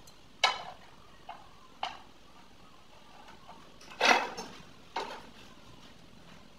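Five sharp, separate clinks and knocks of hard objects on ceramic tile, the loudest and longest about four seconds in.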